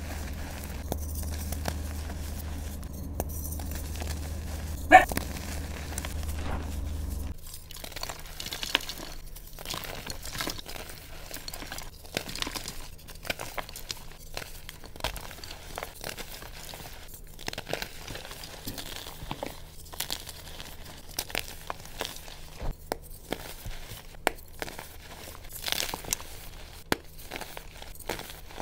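Soft reformed gym chalk being squeezed and crushed by hand: a dense run of dry crunches and crumbles as chunks break up into powder. There is one louder sharp crack about five seconds in, and a low hum under the first quarter that stops abruptly.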